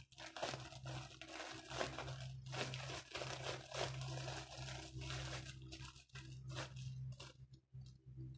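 Clear plastic packaging crinkling and crackling irregularly as it is handled and torn open by hand, thinning out near the end.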